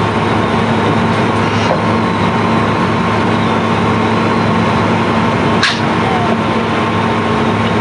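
The sand barge's unloading machinery runs with a steady, even mechanical drone. There is one sharp clack about five and a half seconds in.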